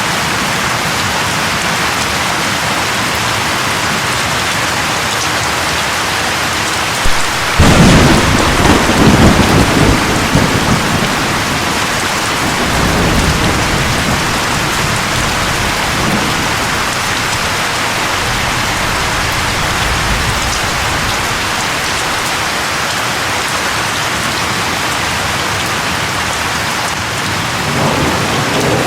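Heavy rain pouring steadily. A clap of thunder breaks in about a quarter of the way through and rumbles on for several seconds, with fainter rolls of thunder later and another beginning near the end.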